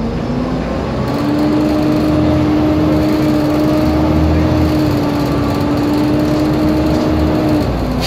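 Volvo B7TL double-decker's 7-litre six-cylinder diesel pulling under power, heard from inside the saloon, with a loud steady whine (the bus's 'hoover' sound) over the engine rumble. The whine sets in about a second in and stops shortly before the end.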